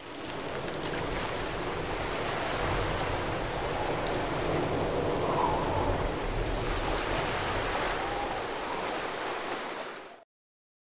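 Steady rain falling on hard surfaces, with a few sharper drip ticks; it fades in at the start and fades out about ten seconds in.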